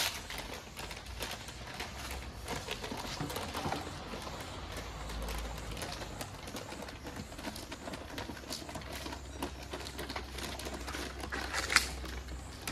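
A paste brush scraping and swishing over a paper poster on a concrete wall as glue is spread on it, with rustling and small knocks of the paper. Two louder, sharp sounds stand out, one right at the start and one near the end.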